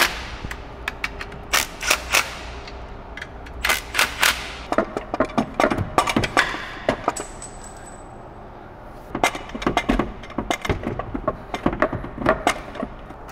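Cordless impact wrench hammering in short bursts while it tightens the clutch pressure plate bolts to the flywheel. Then come scattered metallic clicks and knocks of tools at work.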